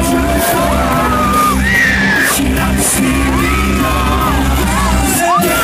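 Live pop performance through a PA system: a loud backing track with a heavy bass beat and a male singer holding and sliding between notes. Fans are screaming close around the recording phone.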